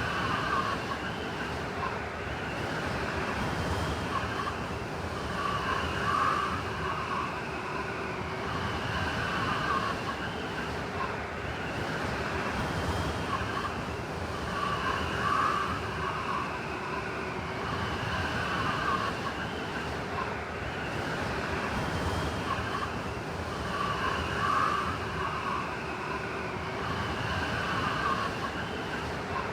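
Blizzard wind blowing steadily, with a wavering howl that swells and fades in gusts about every nine seconds.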